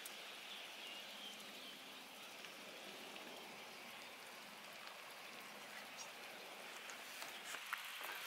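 Faint, steady outdoor hiss of marsh ambience, with a few light clicks near the end.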